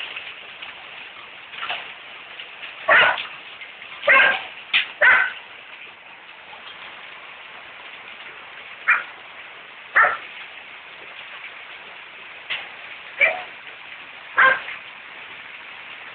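Heavy hailstorm: a steady hiss of hard rain and hail falling. About ten short, sharp, loud sounds stand out irregularly over it.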